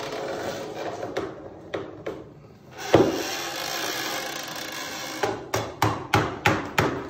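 Hammer striking wood in a quick regular run of taps, about three a second, starting about five seconds in; a single louder knock comes near three seconds in.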